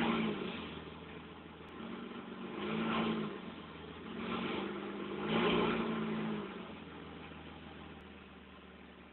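V6 car engine through a new exhaust, revved in four short blips from idle, then settling back to a steady idle that fades near the end.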